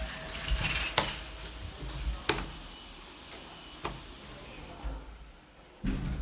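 Hitachi passenger elevator in operation: a handful of sharp clicks and knocks roughly a second apart over a low steady rumble, with a heavier thud near the end.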